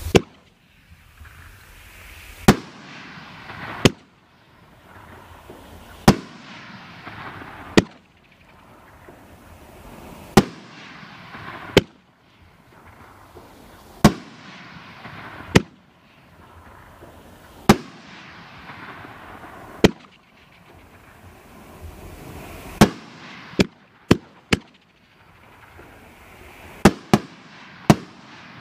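A 500-gram, 9-shot consumer firework cake (World Class 'Migraine') firing its shots: sharp bangs of launches and aerial bursts, roughly one every one and a half to two seconds, with a hissing rush between them. The reports come closer together near the end.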